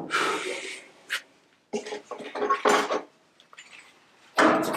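A steel repair panel being handled and offered up against car bodywork: a scrape, a click, then a run of light metallic knocks and clatters, and near the end a loud sustained rubbing of metal on metal.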